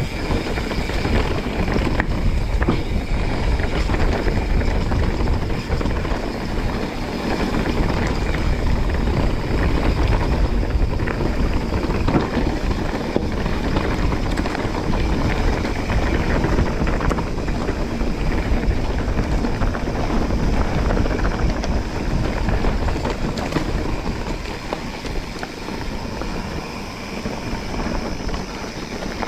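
Mountain bike riding down a dirt trail: wind buffeting the microphone over a steady rumble of tyres on the ground, with many small knocks and rattles from the bike, easing a little near the end.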